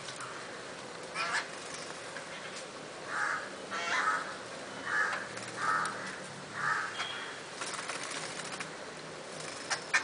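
Jungle babblers giving short harsh calls, about five in a row roughly a second apart, from around three to seven seconds in, with a few brief sharp sounds among them.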